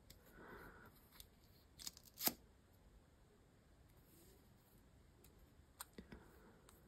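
Near silence broken by a few small plastic clicks from a Farmasi mascara tube being twisted open and its wand pulled out. The sharpest click comes a little over two seconds in, with a few fainter ones near the end.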